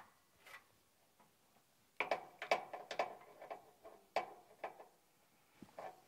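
Light metallic clicks and taps from the caps and refrigerant hose fittings on an air-conditioner condenser's service valves being handled and checked for tightness. A quick run of them starts about two seconds in and goes on for about three seconds, with a few more just before the end.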